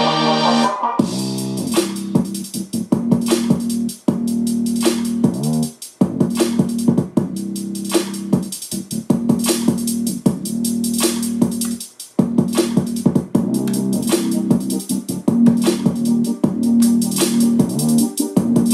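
Electronic music with a drum-machine beat and keyboards, played through a Yamaha CA-2010 stereo amplifier while its treble tone control is switched to demonstrate the 2.5 kHz boost and cut. The music drops out briefly about 4, 6 and 12 seconds in.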